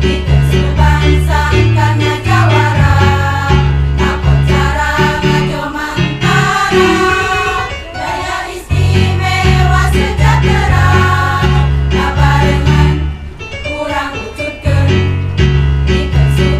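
Women's choir singing in parts over an instrumental accompaniment with a steady, stepping bass line. About six seconds in, the bass drops out for a couple of seconds while the voices carry on, then comes back.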